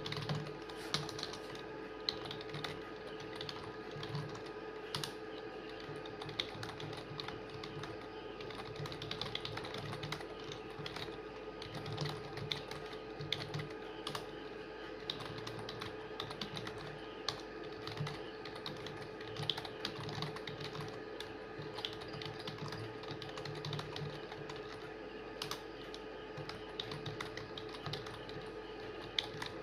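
Fast, continuous typing on a computer keyboard: a dense, irregular stream of keystroke clicks, over a steady low hum.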